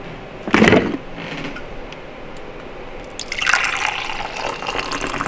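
Water running steadily, starting about three seconds in, after a brief bump just after the start.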